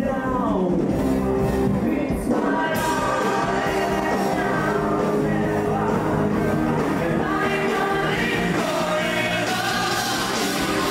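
Loud amplified live music: a man singing into a microphone over a band accompaniment.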